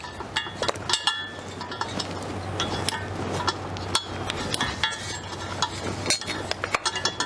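Metal hand tools, wrenches and sockets, clinking and tapping against engine bolts and parts as a V8 is taken apart. Many short sharp clinks, some of them ringing briefly, over a low steady hum.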